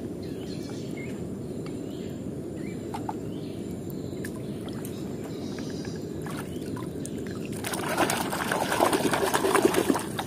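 A hand sloshing a toy car through a plastic tub of water, over a steady low background rumble. About eight seconds in it becomes vigorous splashing and churning for a couple of seconds, the loudest part, then stops abruptly.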